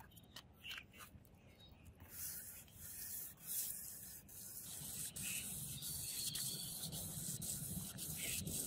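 Sandpaper rubbing back and forth in the groove of a steel sword blade, in quick repeated strokes. It starts about two seconds in, after a few faint clicks.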